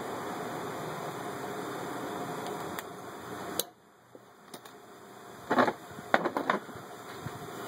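US Blind Stitch Machine Corp 1118-2 commercial blind stitcher running steadily as it sews a blind hem into folded fabric, then stopping abruptly with a click a little past the middle. A few loud rustles follow as the stitched fabric is pulled out and handled.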